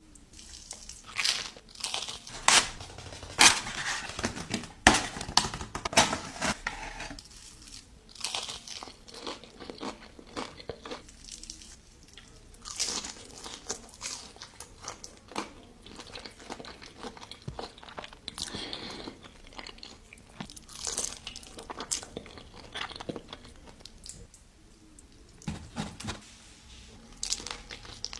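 A person biting into and chewing crunchy food at close range, with repeated crackling crunches that are loudest in the first few seconds, then softer chewing with short pauses.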